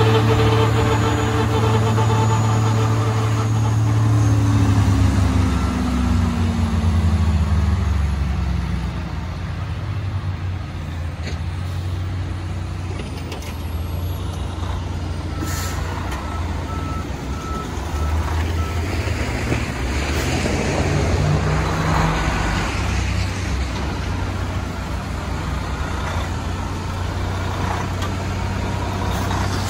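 Diesel engines of snow-removal vehicles: a John Deere wheel loader with a snowblower attachment runs close by, its engine dropping in pitch a few seconds in. Trucks and a bus keep running steadily after that, with a short series of reversing beeps about halfway.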